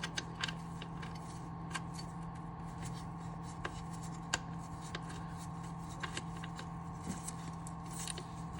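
Scattered light clicks and rubbing of parts and tools being handled during engine-mount work, over a steady background hum.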